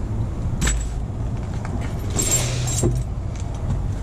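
Metal tools and mounting hardware clinking as they are handled: a sharp click about half a second in, then a jingling clatter of metal a little after two seconds, ending in another click, over a steady low rumble.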